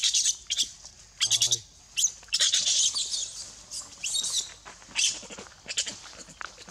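Young macaques screaming: repeated short, very high-pitched squeals in quick bursts, with a lower wavering call about a second in.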